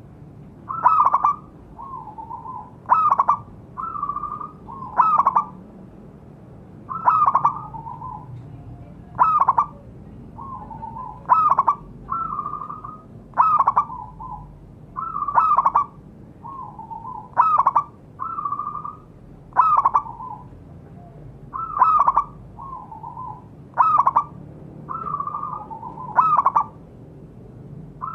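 Zebra dove (perkutut) cooing: a long run of repeated, rhythmic phrases, with louder, sharply rising coos alternating with softer, lower ones about every second or two.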